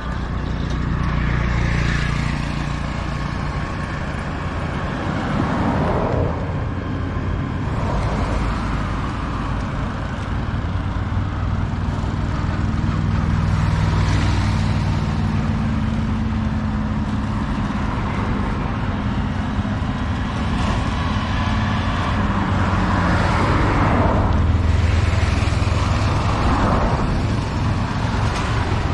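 Road traffic: a steady rumble of engines, with motorcycles and three-wheeled auto-rickshaws passing several times. The passes swell and fade, loudest near the middle and near the end.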